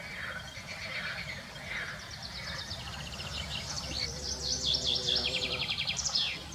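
Songbird singing rapid, high-pitched trills, louder in the second half and ending with a quick falling note.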